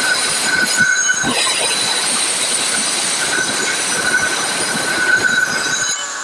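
Electric power tool running into brick: a steady high whine over harsh grinding noise that eases off near the end.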